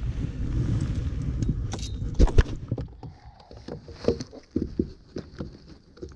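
Knocking and clattering aboard a fishing boat. A low rumble lasts about two and a half seconds and ends in two loud knocks, then scattered lighter clicks and knocks follow.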